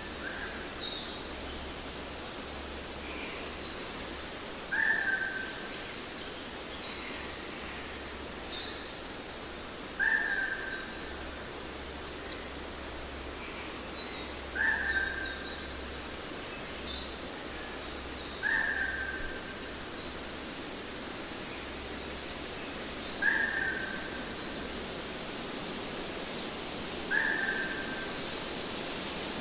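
Birds calling over a steady hiss: one bird repeats a short, clear note about every four to five seconds, and others give high, falling twitters in between.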